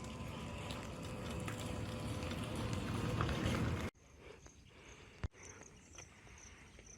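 A rumbling outdoor noise that cuts off suddenly about four seconds in, leaving quiet background with a faint, high, pulsing chirp of insects and one sharp click.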